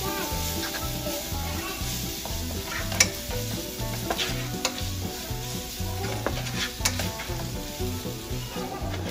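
Sliced onions sizzling in hot oil in a nonstick pan while a wooden spatula stirs and scrapes them around. Sharp knocks of the spatula against the pan, the loudest about three seconds in and again near seven seconds.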